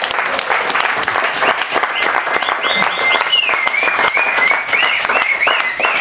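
Audience applauding, with dense steady clapping. From about two seconds in, high, wavering calls, whistles or whoops, rise and fall over the clapping.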